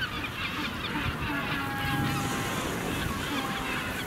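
A Magellanic penguin colony calling: many birds giving short honking calls at once, overlapping, with a few longer drawn-out notes in the middle.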